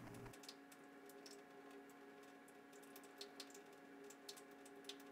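Near silence: a faint steady hum, with a few soft clicks and squishes from a plastic dropper being squeezed and flushed with water.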